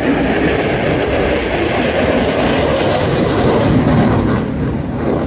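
Loud, steady jet roar from an F-22 Raptor's twin Pratt & Whitney F119 turbofans during a demonstration flight, easing off slightly near the end.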